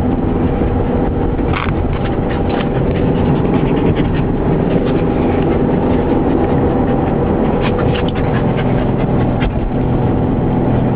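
Steady engine and road drone inside a moving car's cabin, with scattered short scrapes and clicks from a restless dog shifting about between the seats.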